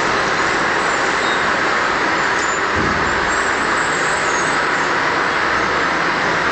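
Steady, loud rushing background noise at an even level, with no distinct events in it.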